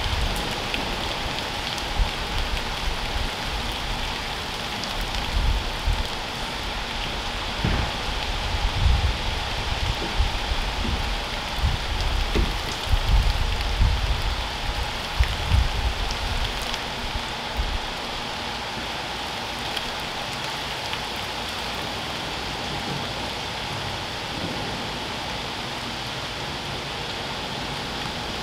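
Steady rain falling on a wet paved driveway and lawn. Irregular bursts of low rumble come through during the first half or so, then ease off.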